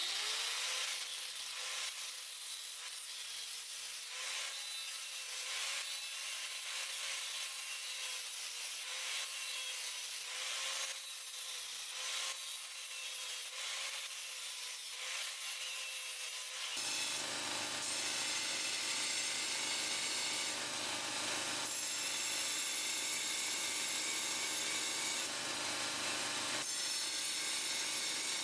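A power tool abrading a workpiece, its motor giving a steady tone under the rasping noise. About 17 seconds in, the sound changes and grows fuller and lower.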